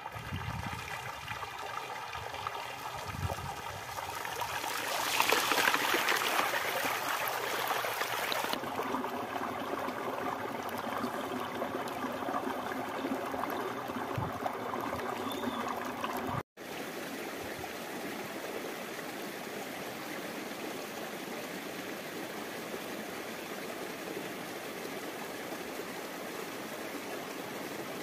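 Water rushing along a concrete irrigation channel fed from a culvert pipe, loudest about five to eight seconds in. After a sudden break past the middle, a small stream runs steadily over rocks.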